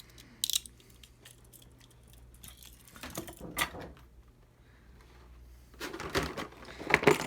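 Small metal and plastic spinning-top parts clicking and clattering as they are handled: a sharp click about half a second in, a few more clicks after about three seconds, and a busier clatter near the end.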